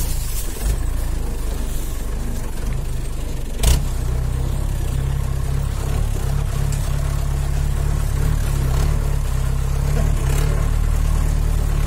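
Jeep engine running steadily under way, heard from inside the canvas-covered rear of the vehicle, with one sharp knock about four seconds in.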